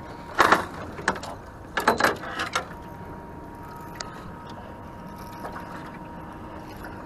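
Knocks and rattles of gear and handling in a small aluminium fishing boat, in two bunches in the first couple of seconds, then steady wind and water noise with a faint thin whine.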